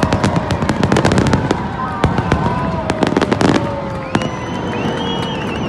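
Aerial fireworks going off in a display: rapid bangs and crackling bursts, densest in the first three and a half seconds and then thinning to a few scattered reports.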